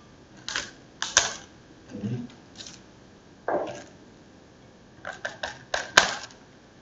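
Irregular sharp clicks and knocks of a coiled plastic airless paint hose and its metal end fittings being handled and turned over, about ten in all, bunched near the end with the loudest about six seconds in.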